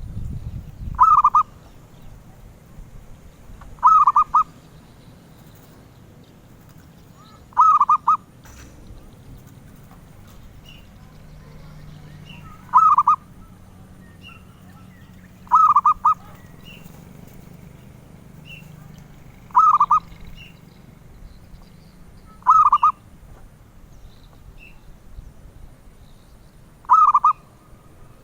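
Zebra dove (perkutut) cooing: eight short, quick trilled coos, one every three to five seconds.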